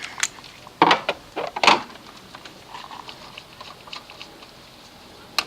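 Hand tools and metal engine parts being handled at a diesel's oil filter housing while the 13 mm top nuts come off. A few short clinks and scrapes in the first couple of seconds, then a single sharp click near the end.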